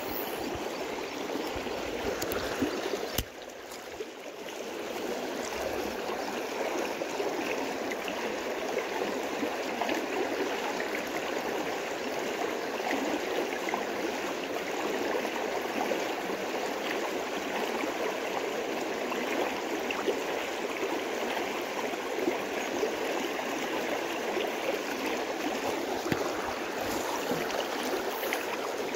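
Steady rush of creek water flowing over a low rock barrier, with a single sharp click about three seconds in.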